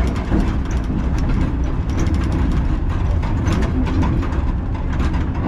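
Vintage two-axle museum tram (Blauwe wagen) running along the track, heard from the driver's cab: a steady low rumble of wheels and motors with frequent clicks and rattles.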